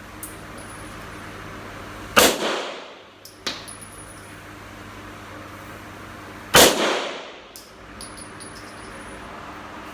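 Two gunshots on a shooting range, about four seconds apart, each ringing off in a long echo, with a few lighter metallic clicks between them.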